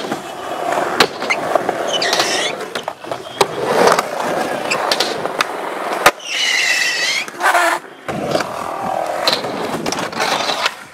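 Skateboard wheels rolling on concrete, broken by repeated sharp clacks of board pops and landings. There are brief high screeches about two seconds in and again around six seconds.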